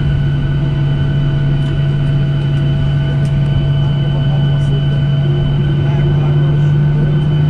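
Steady cabin noise of a Boeing 737-800 taxiing with its CFM56-7B engines at idle: a low hum under several steady whining tones, with another tone coming in about five seconds in.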